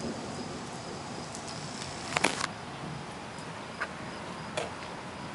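Steady outdoor ambience with a faint high insect chirring, broken by a brief sharp knock about two seconds in and two fainter ones later.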